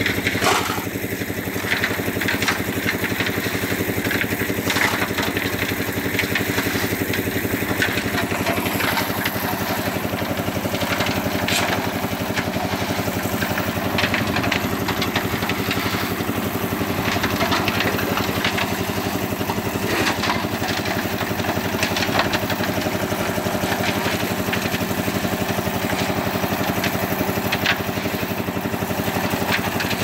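Small engine of a drum concrete mixer running steadily, with scattered scrapes and knocks of shovels and stones throughout.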